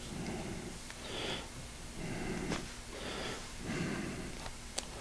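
Heavy breathing through the nose close to the microphone, a soft puff about once a second, with a couple of faint sharp clicks near the end.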